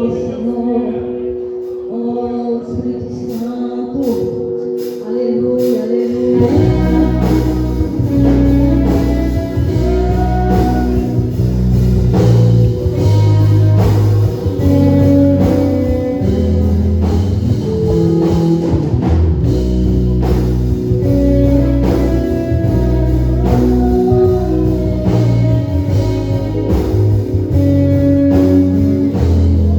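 Live worship band music with singing: a soft opening of held chords, then bass and drums come in about six seconds in and the full band plays on.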